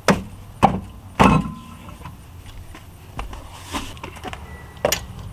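Three sharp clunks in the first second and a half, the third ringing briefly, then a lighter knock near the end: a car's wheel and tyre being handled and worked off the hub.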